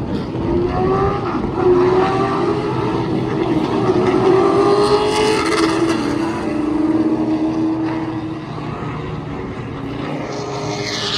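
Racing stock car engines running at speed during practice laps, the pitch rising and falling as cars pass. Louder in the middle, easing off near the end.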